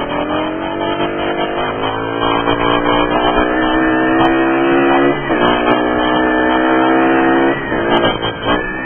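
Mash Fifty's small single-cylinder engine pulling under way, its note slowly climbing as the bike picks up speed. The note breaks off briefly twice, about five and seven and a half seconds in, at the gear changes.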